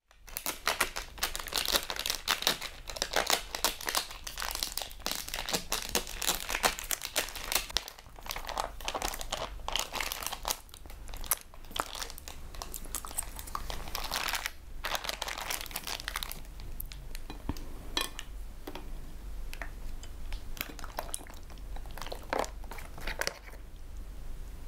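Plastic bag crinkling and crackling as it is handled and opened, dense at first, then thinning to scattered single crackles in the second half.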